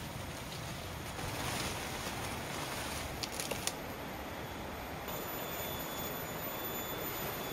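Steady rushing background noise, with a few light clicks a little over three seconds in and a faint thin high whine starting about five seconds in.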